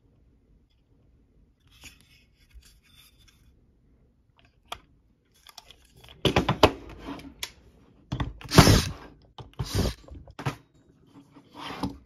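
A homemade hinged wooden metal brake being folded over to bend a thin metal strip, its wooden blocks and hinges scraping and knocking in a run of short, crunchy handling sounds from about halfway in, with faint rustling before.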